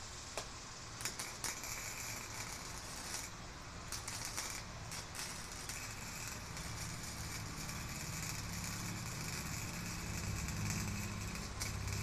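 Electric arc welding on a garage door spring: sputtering crackles as the arc is struck, settling into a steady crackling sizzle. A low hum joins in during the second half.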